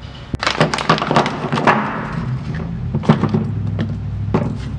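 Irregular metal knocks and clunks of front suspension strut parts being handled and fitted, a quick run of them in the first two seconds and a few more later, over a steady low hum.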